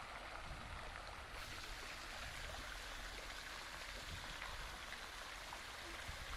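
Steady rushing of falling or running water, an even hiss with no changes.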